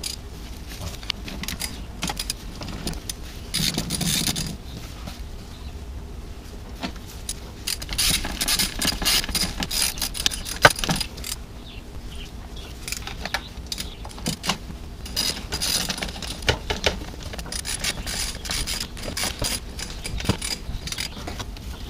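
Hand tools and small metal engine parts clinking and rattling in several bursts, with one sharp click about halfway through.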